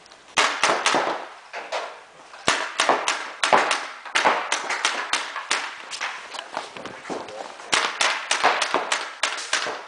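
Paintball markers firing Reball reusable balls in bursts of rapid sharp shots, echoing around a large sports hall.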